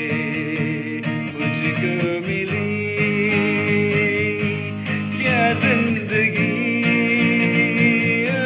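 A man singing a Hindi film song in long, wavering held notes, accompanying himself on a strummed acoustic guitar.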